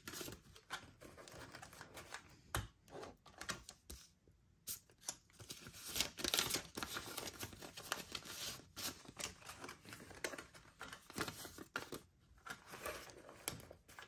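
Paper banknotes rustling and crinkling as they are pulled out of cash envelopes and sorted by hand, with irregular light clicks and taps.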